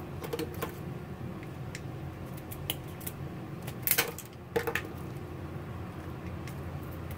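Kitchen shears snipping and cracking through Dungeness crab shell, a few scattered sharp snips with the loudest pair about four seconds in, over a steady low hum.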